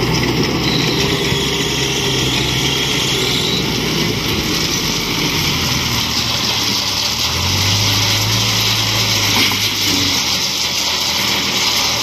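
Diesel engine of a CASE backhoe loader running steadily as it works its front bucket to tip out a load of rubble. For a couple of seconds past the middle the engine note drops and strengthens.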